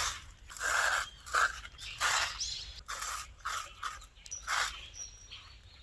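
Pet hedgehog chewing crunchy food, a run of short irregular crunches at roughly one to two a second.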